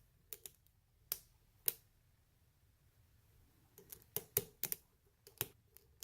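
Small, sharp, irregular clicks of a lock pick and tension wrench working the pins inside a lock's keyway, a few sparse ones at first, then a quicker run of clicks about four seconds in.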